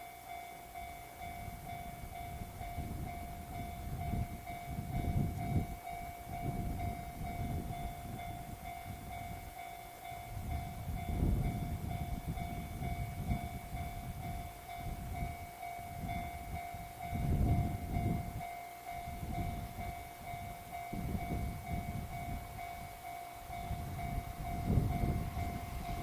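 Japanese railway level-crossing alarm ringing continuously in a repeating electronic tone, the warning for an approaching train, over irregular gusts of wind rumbling on the microphone.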